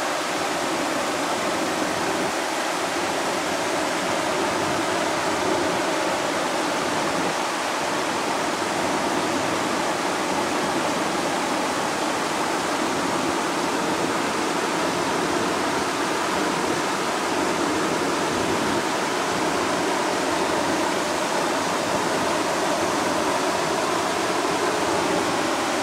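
Steady rush of water pouring over a river weir.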